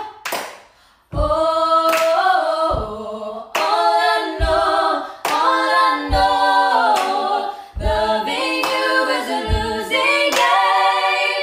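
Three women singing a cappella in close harmony, starting about a second in after a short pause. A slow beat is kept by hand percussion: a low thump about every second and a half, with claps between.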